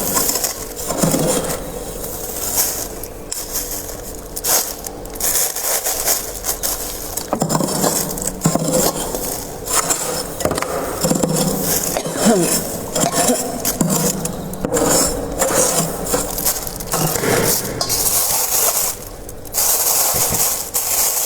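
Freezer frost being scraped and crunched close to the microphone: crisp, gritty scraping and crunching in repeated irregular strokes.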